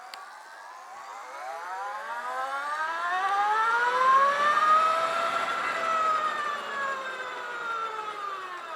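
Electric motorcycle's motor and gear whine, rising in pitch and loudness as it accelerates, then falling away as it slows, over several seconds.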